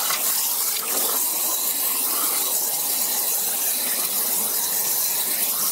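Flow Mach500 waterjet's high-pressure jet cutting HDPE plate: a steady, high hiss.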